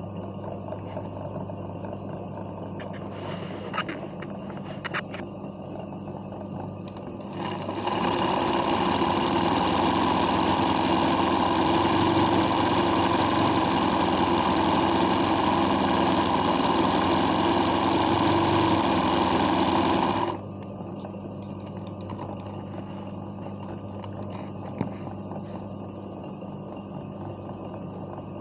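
Old black sewing machine running steadily while stitching free-motion hoop embroidery, starting about seven seconds in and stopping abruptly about twenty seconds in. A steady low hum runs underneath before and after the stitching, with a few light clicks about four seconds in.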